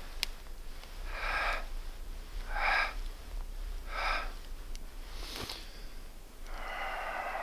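A man's forceful, rhythmic breaths while exercising to warm up in the cold: four short hard exhales about every second and a half, then a longer drawn-out breath starting near the end.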